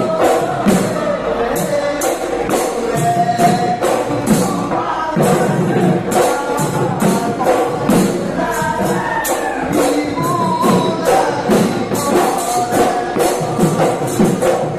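Bihu festival music: dhol drums beating with a steady fast rhythm of cymbal clashes, over wavering sung or piped melody lines.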